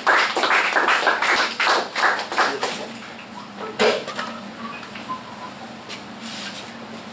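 A small audience applauding, dense clapping that dies away after about three seconds; then a single thump and light rustling of papers.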